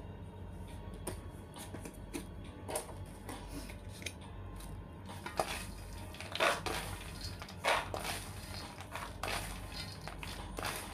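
Peanuts rattling and plastic tubs clicking and knocking as the peanuts are scooped into clear plastic containers. There are a series of short clatters, a few of them louder just past the middle.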